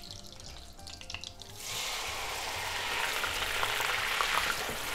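Marinated shrimp going into a pan of hot butter and olive oil with garlic cloves. About one and a half seconds in, a loud sizzle starts as the wet shrimp hit the fat, and it holds steady.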